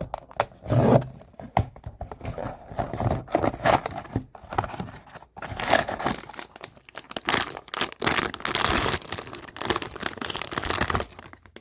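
Blind-box packaging being torn open and crinkled by hand: irregular tearing, rustling and crackling with short clicks throughout.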